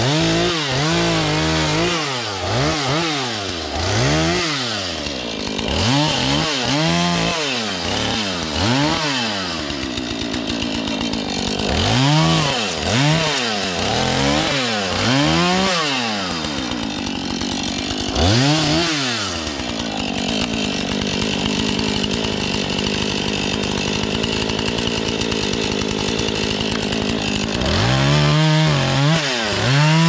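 Husqvarna two-stroke chainsaw cutting branches off felled red pine, its engine revving up and dropping back about once a second. Near the end it holds a steady high pitch for several seconds before the rev bursts start again.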